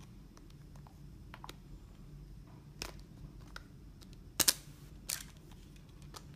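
Plastic back cover of an AGM A8 rugged phone being prised off by hand: light clicking and fumbling, then sharp snaps as its clips let go, about three seconds in, twice close together at four and a half seconds, and once more at about five seconds.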